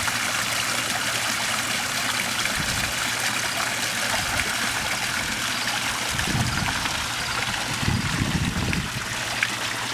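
Garden pond's waterfall running, a steady splashing trickle of water, with a low steady hum underneath.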